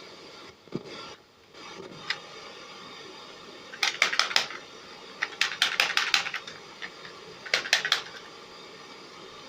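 Three quick bursts of small, sharp clicks and taps, typical of handling the small plastic and metal parts of a car radio-cassette player's tape mechanism, over a steady faint hum.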